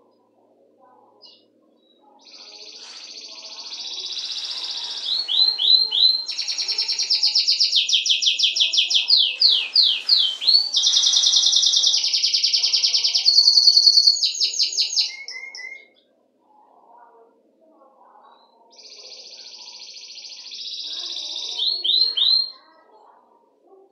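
Belgian canary (domestic canary) singing: a long song of rapid trills and rolling repeated notes lasting about fourteen seconds, then a shorter bout near the end.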